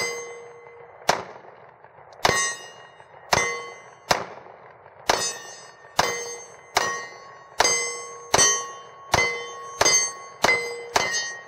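Glock 10 mm pistol fired fourteen times in a steady string, about one shot a second. Most shots are followed by a short metallic ring.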